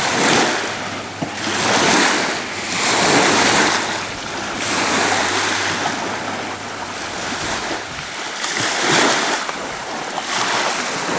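Waves washing onto a beach, swelling and fading every second or two, with wind buffeting the microphone.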